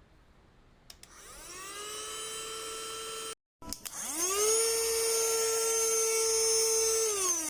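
Mini cordless handheld vacuum cleaner's small motor switched on with a click, whining up to speed and running steadily, then cut off abruptly. It is switched on again about a second later and runs louder and higher, then starts to wind down near the end.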